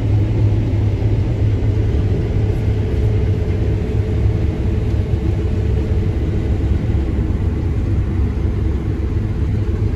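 Combine harvester running steadily while cutting wheat, heard from inside the cab: a constant low engine and machinery rumble.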